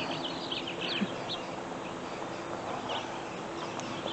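Small birds chirping in a scatter of short, quick high calls, over a faint steady low hum.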